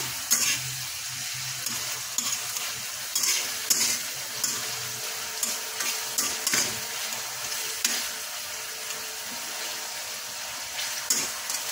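Chopped tomato, onion and garlic sizzling in oil in a steel wok, with a spatula scraping and tapping against the pan every second or so as the tomatoes are stirred and mashed.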